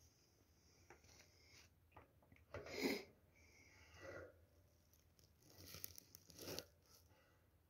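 Faint rustling and crunching from a hamster moving in wood-shaving bedding inside a wooden house, in a few short bursts, the loudest about three seconds in.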